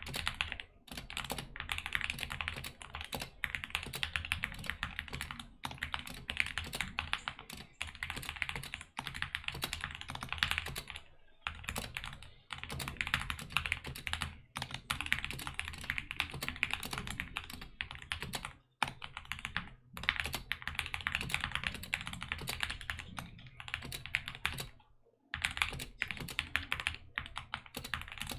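Steady fast typing on a DK61 60% mechanical keyboard with lubed Gateron optical red linear switches, its case foamed and stabilizers band-aid modded, with a few brief pauses.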